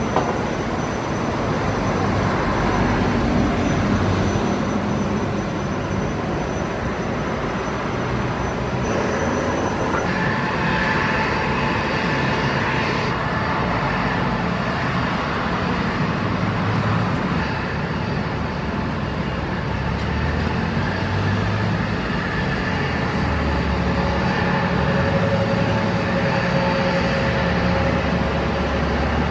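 Turbofan engines of an Embraer ERJ-145-family jet running at ground idle: a steady jet rumble with whining tones, a higher whine joining about ten seconds in.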